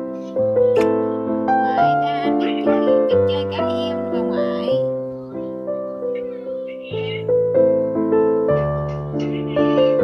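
Background piano music: a slow melody of struck notes, each fading away, over a few held lower notes.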